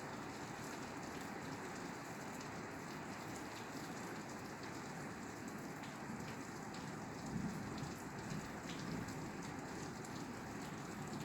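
Steady rain falling on a roof, an even hiss with many small sharp drop taps scattered through it and a brief low swell about seven seconds in.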